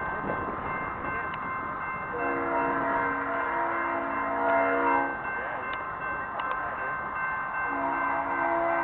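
Approaching Norfolk Southern freight locomotive's air horn, a chord of several notes: one long blast of about three seconds, then a second blast starting near the end.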